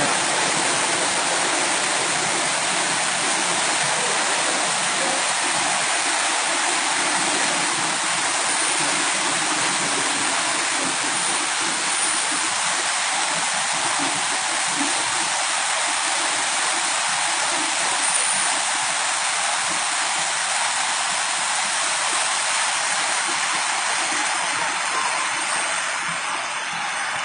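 Steady rush of a waterfall in flood, overflowing after heavy rain.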